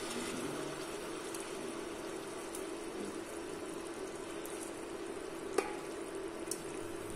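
Duck curry sizzling and simmering in a stainless steel pot, over a steady hum, as a knife is pushed into the meat to test that it is cooked. A sharp click about five and a half seconds in.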